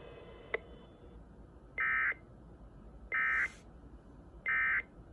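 Emergency Alert System end-of-message code: three identical short, buzzy data bursts of SAME tones, about a second and a third apart, signalling the end of the alert. A faint click comes about half a second in.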